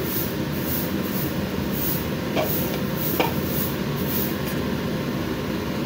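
Steady rushing hiss of a gas burner under a pan of broth simmering beneath a glass lid, with two brief clinks a little over two and three seconds in as the lid is handled.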